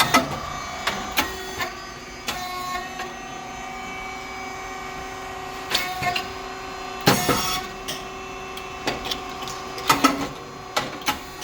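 SYP4506 rice cake popping machine running: a steady hum from its motor and hydraulic pump, with scattered mechanical clicks and knocks from the mould and feeding mechanism, and one louder burst of noise about seven seconds in.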